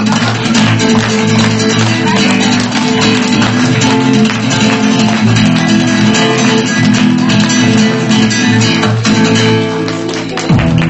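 Flamenco-style guitar music, strummed and plucked.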